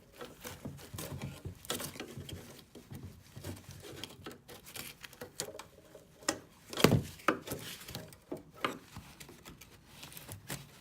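Irregular light clicks, scrapes and rustling from hand work on a car's brake line and its metal retaining tabs, with a few louder metallic knocks about two thirds of the way through.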